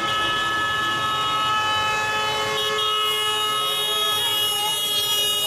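Car horns of a slow-moving convoy of cars and a minibus, many held down at once, so that several horn pitches sound together without a break.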